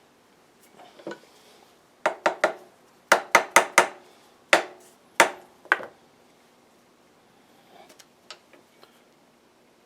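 Sharp knocks of metal setup parts and tools, in quick runs: three, then four, then three more spaced out, with a few faint taps near the end. These come as a workpiece is set on parallels and clamped down on a milling machine table.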